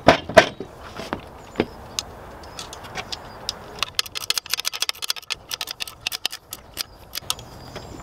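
Metal handling noise as a chainsaw is fitted to a chainsaw-mill carriage's mounting plate: a few clunks in the first couple of seconds, then a run of quick metallic clicks and clinks about halfway through.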